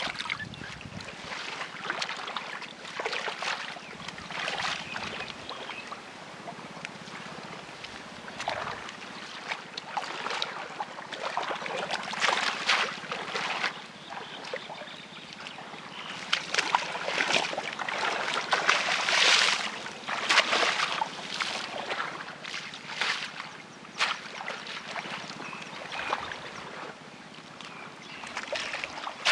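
Shallow muddy water splashing and sloshing irregularly as a bamboo plunge-basket fish trap is pushed down, worked and carried through it, with a louder, busier stretch about two-thirds of the way through.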